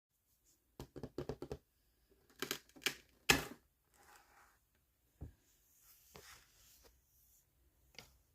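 Small blind-box packaging being handled and opened: a quick run of about six taps, then crinkling with one sharp snap, followed by softer rustling and a couple of single clicks.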